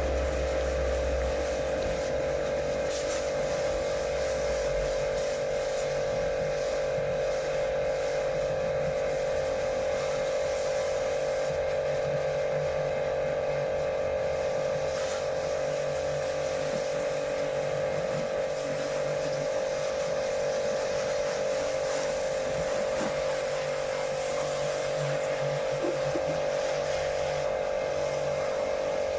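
Pressure washer running with a constant, steady hum while its jet sprays water onto a car's body.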